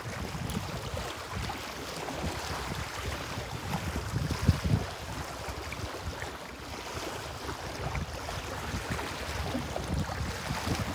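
Wind buffeting the microphone over small waves lapping at a rocky lakeshore: a steady hiss with irregular low gusts, one stronger about halfway through.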